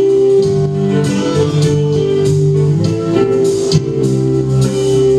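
A live band playing an instrumental passage, with guitar prominent over held bass notes and repeated sharp percussive hits.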